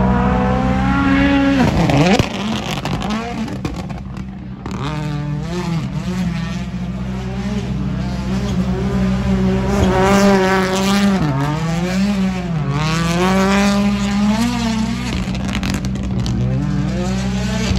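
A WRC Rally1 car's turbocharged engine driven hard through a roundabout, the revs rising and falling again and again as the driver works the throttle.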